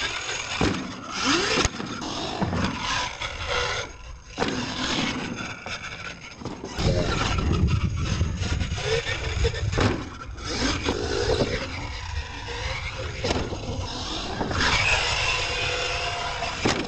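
Radio-controlled monster truck's motor whining up and down in pitch as it drives and jumps dirt ramps, with several thuds of landings and tyres scraping over dirt.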